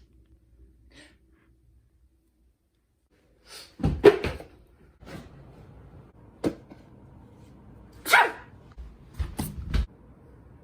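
A person sneezing: two loud sneezes about four seconds apart, the first about four seconds in, with a few softer knocks between and after.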